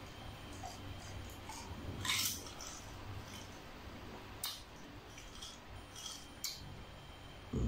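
Faint mouth and breath sounds of a person drinking a spicy carbonated cola from a glass: a short breathy hiss about two seconds in, a few small clicks, and a dull thump near the end.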